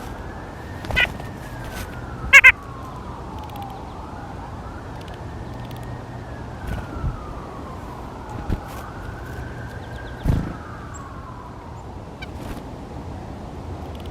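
Emergency vehicle siren wailing, slowly rising and falling every four to five seconds. Two loud, short, sharp sounds come about two and a half seconds in, the loudest thing here. A low thump follows near ten seconds.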